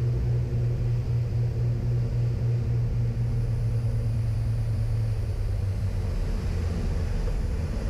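Beechcraft Baron B55's twin piston engines droning steadily during the landing flare, heard from inside the cabin; the drone drops about five seconds in as power comes off for touchdown.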